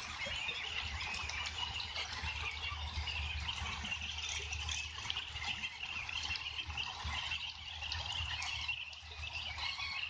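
A large flock of two-month-old ducks calling all at once, a dense steady chatter, with a low rumble underneath.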